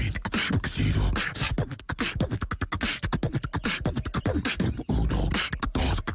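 Beatboxing: a human voice making fast drum-like clicks, hisses and deep kick-drum thumps in a steady rhythm, dubbed as a chipmunk's voice.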